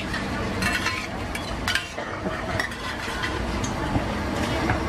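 Steel spatulas clinking and scraping against a large, wide, flat pan of oil: a handful of sharp metallic clinks spread through a few seconds, over a steady low background noise.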